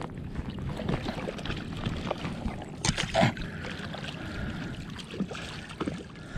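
River water swirling and lapping around a wading angler while a hooked trout is played, with a couple of sharper splashy noises about three seconds in.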